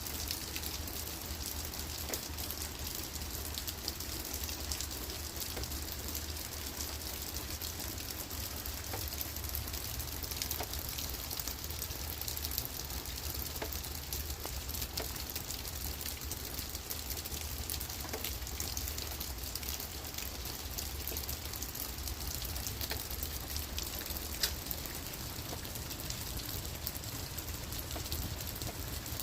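Steady rain falling on leaves and on the ground: a constant hiss dotted with the patter of individual drops. A low steady hum runs underneath.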